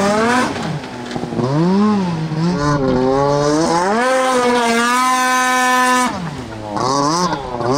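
Snowmobile engines revving hard while skimming across water, pitch rising and falling with the throttle. One holds a steady high note at full throttle and then cuts off abruptly about six seconds in, followed by more revving.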